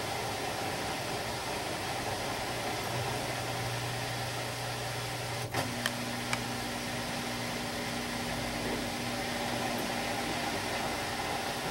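Samsung WD136 front-loading washer-dryer washing, its direct-drive drum tumbling a wet load of clothes with a steady whirring hum. About halfway through there is a click and a few light ticks, and the motor's hum changes to a higher tone.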